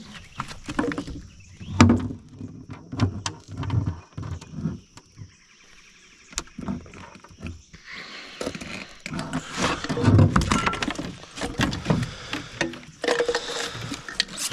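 Irregular knocks and thumps of a channel catfish being handled and unhooked on a boat floor, the heaviest about two seconds in and again about ten seconds in, with a steady high buzz in the background for the first half.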